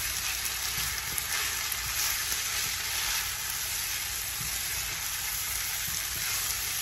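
Spaghetti with chicken sausages and vegetables sizzling steadily in a hot frying pan as it is stirred and tossed with a silicone spatula, with a few faint scrapes of the spatula in the pan.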